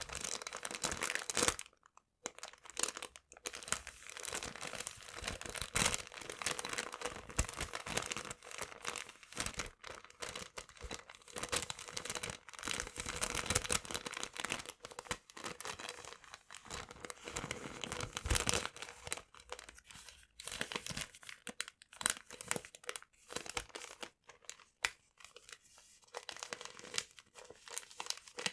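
Paper being crumpled and torn close to the microphone: a dense, irregular crackle and rustle with short pauses, thinning out into more separate crinkles in the later part.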